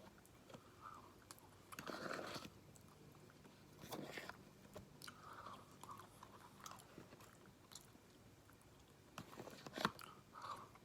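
A person chewing and biting into crispy boneless fried chicken, with short bursts of crunching about two, four and ten seconds in and soft mouth clicks between them.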